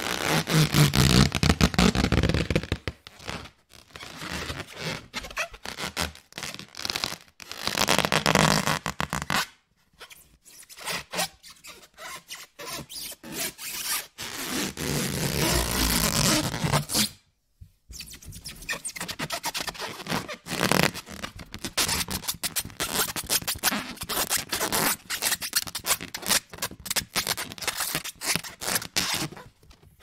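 Rubber balloon sound effect: fast, rasping, squeaky stutters in a run of bursts, with two short breaks, about a third of the way through and just past halfway.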